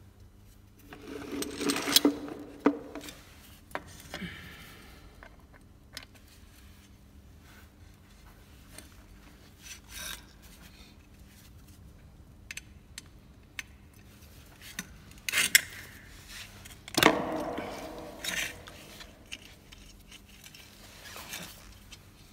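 Hand tools and a removed diesel fuel filter housing handled on a hard floor: irregular scraping, rubbing and sharp metal clinks. Louder bouts of scraping come about two seconds in and again after about fifteen seconds, with single clicks between.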